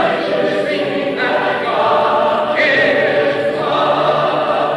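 A choir singing a cappella, many voices in harmony.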